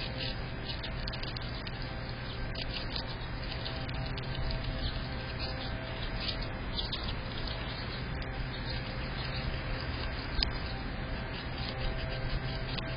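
Squirrel chewing and cracking food: irregular runs of small, sharp crunching clicks over a steady low hum.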